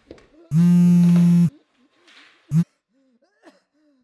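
Smartphone vibrating on a stone countertop for an incoming call: one steady buzz of about a second, then a brief buzz cut short about two and a half seconds in.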